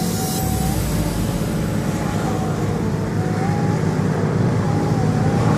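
Steady low hum of a running engine, with a faint wavering whine above it, growing slightly louder toward the end.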